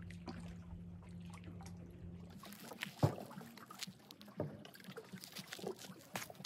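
Footsteps in sandals scuffing and knocking on rock and brushing through low shrubs, with one sharp knock about three seconds in. Before them, a faint steady low hum.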